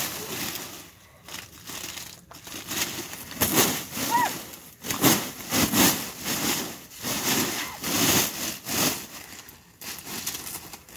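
Sheet of ice glazing a trampoline mat crunching and cracking under repeated jumps, in bursts about once a second that grow busier after the first few seconds.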